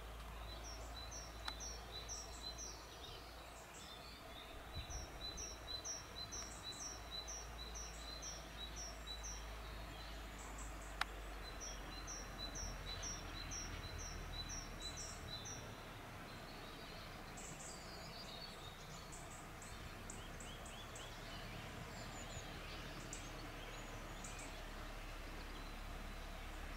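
Woodland birdsong: a small songbird repeats a phrase of short, high, falling notes about two a second, in three runs, with fainter chirps from other birds later on. A single sharp click comes near the middle, over a low steady rumble.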